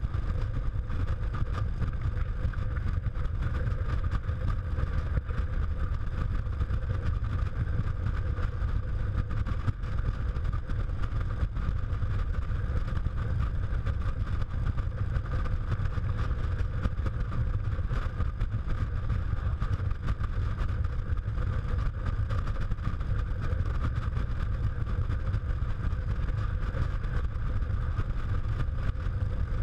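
Motorcycle cruising at a steady speed: wind rumbling on the camera microphone, with the engine's even drone underneath and no change in speed.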